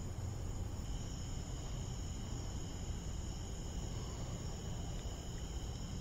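A steady chorus of insects singing: several high-pitched trills held without a break, over a low rumble.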